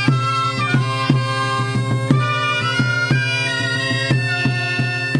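Traditional folk dance music: a reedy wind-instrument melody over a steady low drone, with percussion striking about three times a second.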